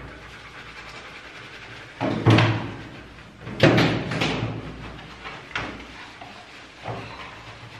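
Wet German Shepherd in a stainless-steel bathing tub, with two loud bangs against the steel about two seconds in and again a second and a half later. The second comes as the dog shakes off water, and each bang trails off over about half a second. Smaller knocks follow near the end.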